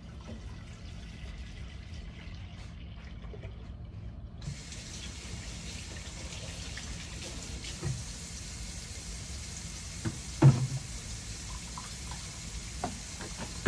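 Milk pouring in a steady stream from a plastic gallon jug into a clay pot of hot cinnamon water. A hiss comes in about four seconds in, and there is a thump about ten seconds in.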